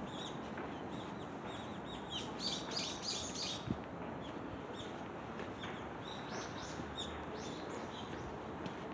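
Small birds chirping repeatedly in short, falling notes over a steady outdoor hiss, busiest between about two and three and a half seconds in, with a single brief knock just after.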